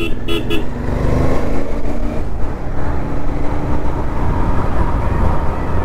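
Royal Enfield Interceptor 650's 648 cc parallel-twin engine running at a steady speed on the move, its pitch holding level, over a steady rush of road noise.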